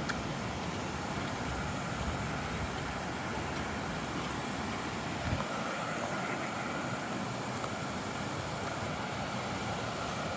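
Steady rush of falling and flowing water from a waterfall and stream.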